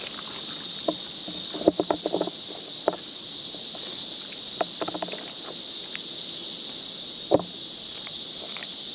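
Shallow river water lapping over stones, with a scattering of short clicks and small splashes. A steady high-pitched buzz runs underneath.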